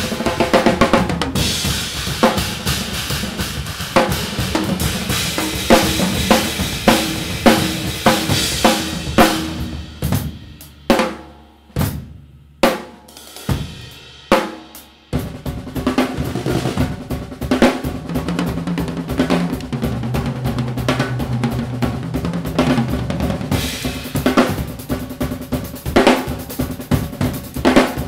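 Two drum kits, Gretsch drums with Sabian cymbals, played together in a free improvisation: busy snare, bass drum, tom and cymbal patterns. About ten seconds in the playing thins to a few scattered hits with short pauses, then both kits come back in fully, with pitched tom strokes prominent.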